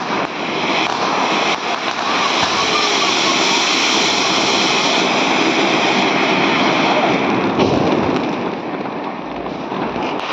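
Ground fountain firework (a flower pot) spraying sparks with a steady, loud rushing hiss. A sharp crack comes near the end, and the hiss then dies down as it burns out.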